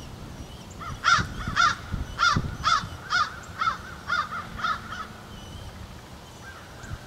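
Crow cawing, a run of about eight harsh caws at roughly two a second that stops about five seconds in.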